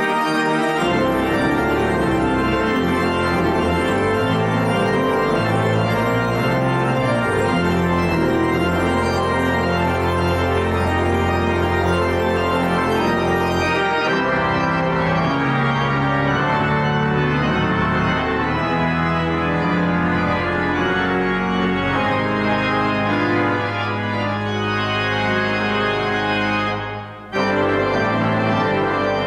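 Church pipe organ playing a postlude in full chords over long-held low pedal notes. The sound grows less bright about halfway through, and there is a brief break near the end before the playing resumes.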